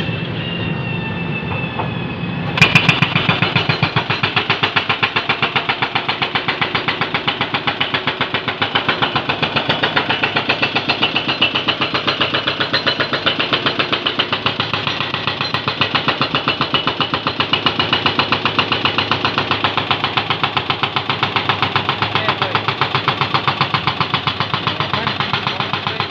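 Excavator's diesel engine running with a thin hydraulic whine, then about two and a half seconds in its hydraulic breaker starts hammering the road surface: a rapid, steady string of sharp blows that keeps going.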